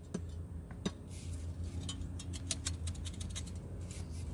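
Long metal valve key slowly turning a buried water shutoff valve, cracking the water back on so the house plumbing can pressurize, with a run of quick scraping clicks over a steady low hum.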